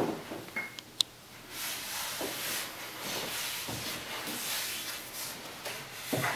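A wooden-framed print being lifted off a wall hook and carried: a brief squeak and a sharp click about a second in as it comes free, then soft rustling and handling noise.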